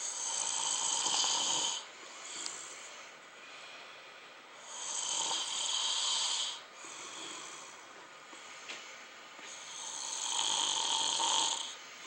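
A person snoring: three long snores about five seconds apart, each lasting about two seconds, with quieter breathing between.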